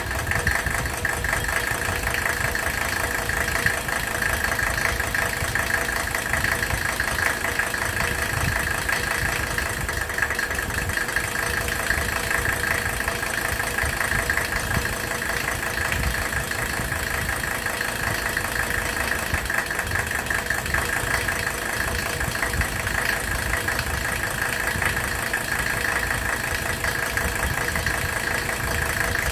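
Mercedes OM617 five-cylinder turbo diesel idling with diesel clatter while air is bled from its injector lines. It stumbles briefly each time an injector line fitting is cracked open, the sign that that cylinder is firing on its new nozzle.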